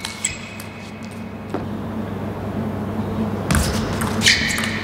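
Table tennis rally sounds: a few sharp clicks of the ball off bats and table, and high squeaks of shoes on the court floor, over a steady hum. About three and a half seconds in it turns louder and noisier, with more squeaking.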